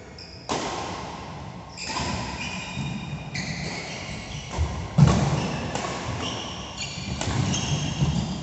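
A badminton rally on a synthetic court: players' feet thud and shoes squeak in short high squeals as they move and lunge, with the shuttlecock struck by rackets. A sharp thud about five seconds in is the loudest.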